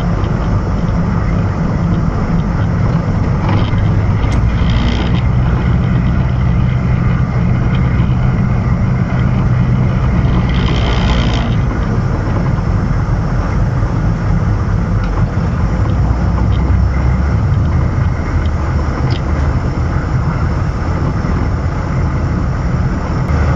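AM General M998 Humvee driving, its engine running steadily under road noise, with a brief rush of higher noise about eleven seconds in.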